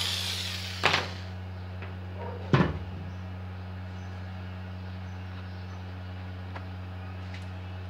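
A hissy noise fading out at the start, then a sharp click about a second in and a heavier clunk a moment later, like tools or metal pieces being handled and set down, over a steady low hum.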